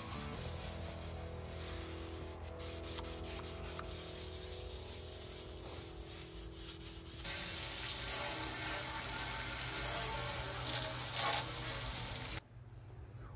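A grill brick scrubbing the rusty steel top of a Blackstone griddle. About seven seconds in it gives way to a hose spray nozzle blasting water onto the plate, a louder steady hiss that stops abruptly near the end.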